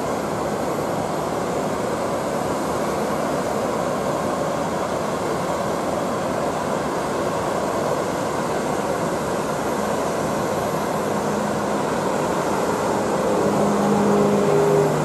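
Twin piston-engine propeller plane on its take-off run at full power: a steady engine-and-propeller drone that grows louder near the end as the aircraft lifts off and draws closer, a steady engine hum becoming clear in it.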